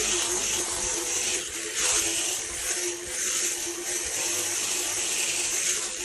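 Electric sheep-shearing handpiece running steadily, its comb and cutter buzzing as it clips the wool off a sheep.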